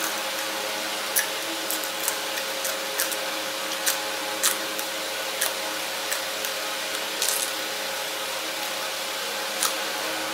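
Crisp crunching clicks of raw long red chillies being bitten and chewed, about a dozen short snaps scattered irregularly, over a steady background hiss with a faint hum.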